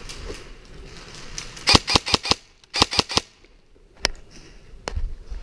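Airsoft gun firing: two quick bursts of about four shots each, then two single shots about a second apart near the end.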